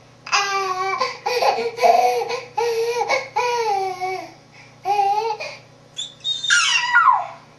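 A young child making loud babbling, squealing vocal calls in a string of short bursts, imitating an eagle. Near the end comes a high screech that falls steeply in pitch.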